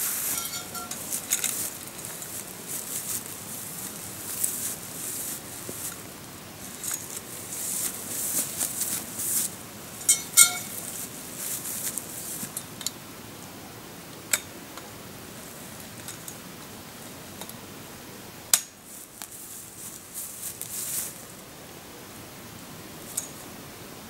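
Folding metal camp frame being unpacked and set up: its metal tubes clink and knock against each other, along with rustling of a bag and fabric. There is a loud ringing clink about ten seconds in, and a few sharp clicks follow in the second half.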